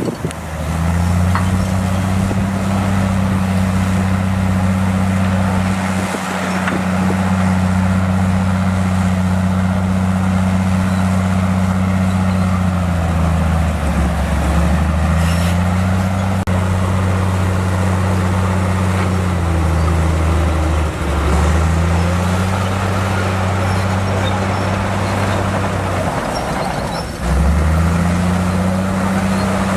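Bulldozer's diesel engine running steadily at working speed. Its note sags and picks back up three times: about halfway, about two thirds of the way in, and near the end.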